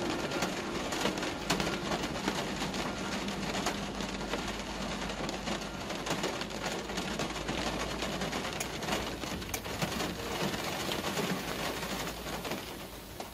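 Rain on a car's windshield and roof heard from inside the cabin: a steady patter of many small, sharp drop clicks over the car's low, steady hum as it drives.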